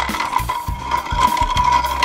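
Background music with a steady beat and a held high note.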